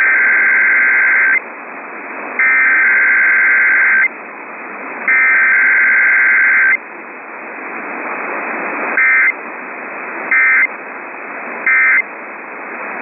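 Emergency Alert System SAME data bursts received over radio: three long two-tone buzzing header bursts about a second apart, then three short end-of-message bursts, with radio hiss between. The header runs straight into the end-of-message code with no attention tone or voice message, as in a Required Weekly Test.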